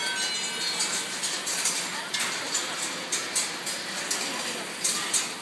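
Golf balls rolling and clattering through a ball-run sculpture's tracks: irregular sharp clicks and knocks, with a brief ringing tone as a ball strikes a chime near the start.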